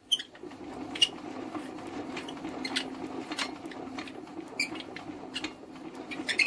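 Norman flat-twin engine being turned over for a spark test: a steady mechanical whirr with irregular sharp squeaks and clicks.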